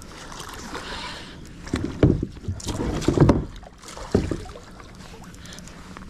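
A fish being reeled in on a spinning rod and reel from a small boat: irregular knocks and rustles from handling the rod and reel over a steady wash of water and wind noise.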